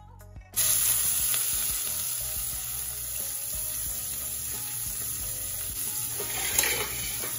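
Chopped red onions hitting hot vegetable oil in a metal pot: a sudden sizzle starts about half a second in and carries on steadily as they fry, with one brief louder burst near the end.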